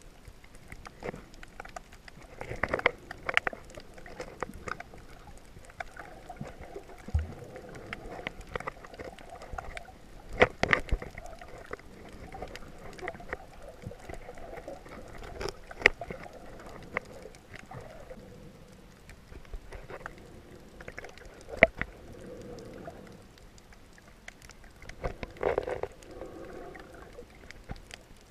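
Muffled underwater noise picked up by a submerged camera: water sloshing and gurgling around the housing, with irregular clicks and knocks, a few of them sharp and loud.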